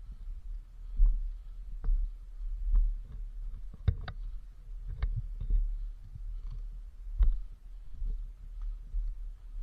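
Low thumps roughly once a second mixed with sharp clicks, the loudest a close pair of clicks about four seconds in.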